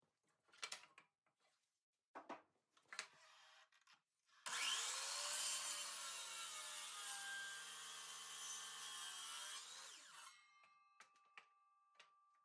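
DeWalt sliding compound miter saw cutting through a block of jatoba hardwood. The motor starts suddenly about four seconds in, rising in pitch, runs steadily through the cut for about five seconds, then winds down and stops. It is preceded by a few light knocks of the wood block being set against the saw's fence.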